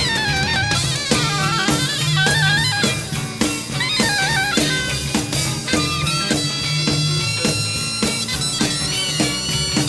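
Live jazz-funk band recording off cassette tape: a steady drum-kit beat with bass, under a high lead line that bends and wavers in pitch through the first half, then settles into held notes.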